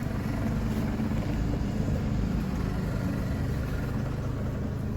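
Hyundai Verna's electric power steering being turned with the car running steadily underneath, the steering column motor giving a tuk-tuk knocking. The knock comes from the EPS motor's worn internal bearing and its carbon brushes rubbing.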